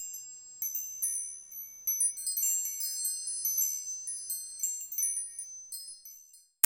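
High tinkling chimes, many small metal notes struck one after another and overlapping as they ring out, fading away near the end, followed by a single sharp click.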